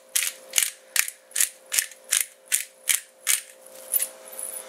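Pepper grinder being twisted by hand, its grinding mechanism clicking in an even run of about two and a half clicks a second as pepper is ground. The clicking stops about three and a half seconds in.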